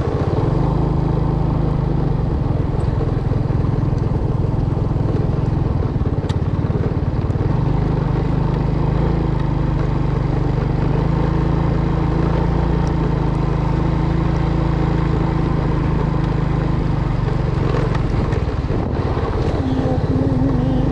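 A small engine running steadily at an even speed, with a constant low hum.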